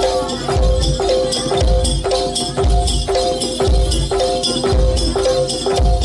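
Instrumental campursari music for jaranan, played live: a deep drum stroke about once a second under sustained tuned melody notes and a steady jingling high percussion.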